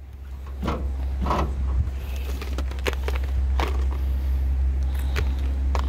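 A steady low rumble, with a few short knocks and rattles as gear is handled in an open car trunk full of cable spools, boxes and tool bags.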